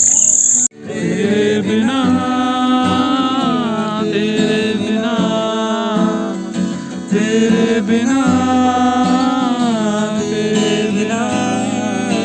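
Crickets chirping for under a second, then a sudden cut to a voice singing a melody to an acoustic guitar, in two long drawn-out phrases.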